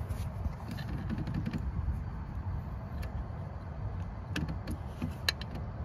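A few faint, scattered clicks and taps from hands working at the engine block while an O-ring is fitted, over a low steady rumble.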